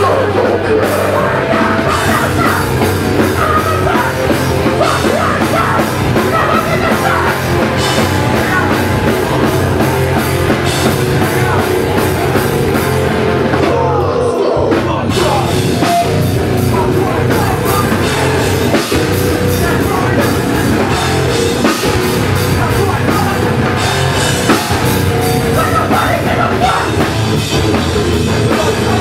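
Hardcore band playing live at full volume: heavily distorted guitars, bass and drums with cymbals. About halfway through there is a brief break, then the full band comes back in.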